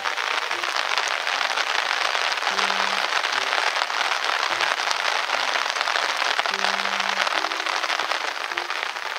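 Heavy rain falling steadily, a dense patter of drops. Faint background music with sparse low notes plays underneath.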